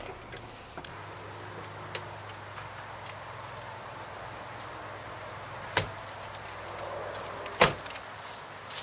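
A steady high insect drone, with two sharp thumps about six and seven and a half seconds in, the second one louder.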